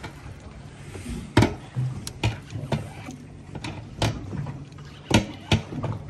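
Irregular knocks and thuds aboard a small fishing boat at sea, about seven in six seconds, over a low steady hum.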